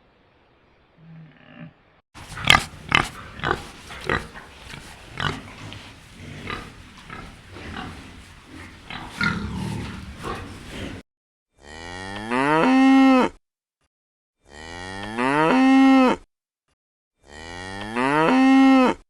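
Cow mooing: three matching long moos in the last seven seconds, each rising in pitch at its start, with silent gaps between them. Before the moos comes a busy stretch of sharp clicks and noise from a different recording.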